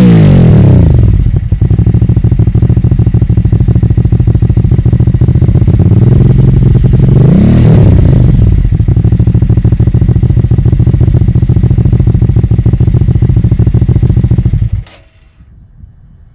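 Hyosung GV650 Aquila's 647 cc V-twin through a custom aftermarket exhaust: the engine settles from a rev to idle, lopes steadily, gets one short throttle blip about halfway, then cuts off abruptly near the end.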